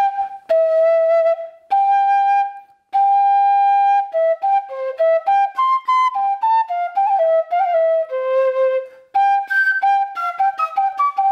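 Bamboo pífano, a Brazilian transverse fife, played solo: a few long held notes, then a quick running melody that settles on a low held note about eight seconds in, followed by a final phrase of short notes.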